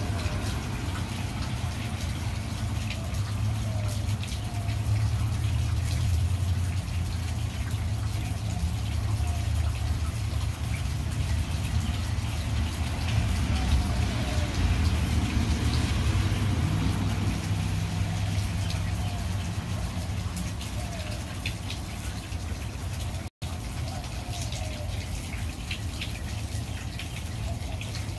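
Steady low background rumble with an even hiss over it, which drops out for an instant about 23 seconds in.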